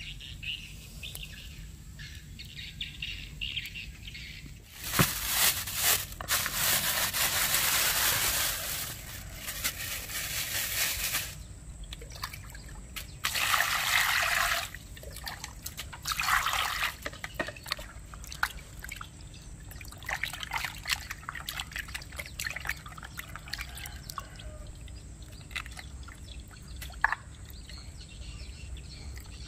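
Water pouring into a plastic basin in a steady rush for several seconds, then in two shorter pours. After that come hands swishing and squeezing raw squid in the water, with small splashes and drips.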